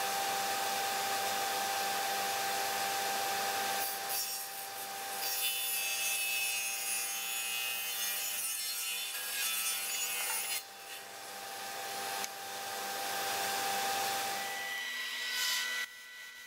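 Table saw running with a steady motor hum. From about four seconds in, its blade cuts through a wooden board with a loud high hiss that lasts several seconds. The saw's hum stops shortly before the end.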